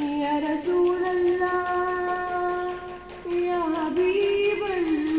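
A girl singing a naat solo into a microphone, holding long, steady notes. About three seconds in there is a short break, then a run of sliding, ornamented notes.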